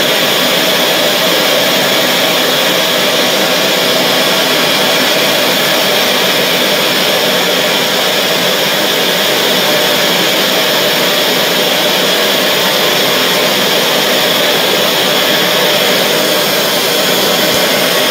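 Glassblower's gas bench torch burning steadily: a loud, even rushing noise that does not change.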